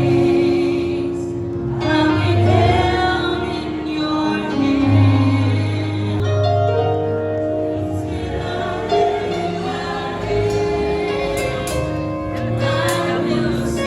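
Music with a choir singing, gospel in style, with held notes over a low bass line.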